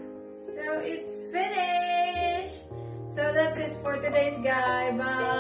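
Background music: a song with a female singing voice over sustained keyboard chords, a low bass note coming in about two seconds in.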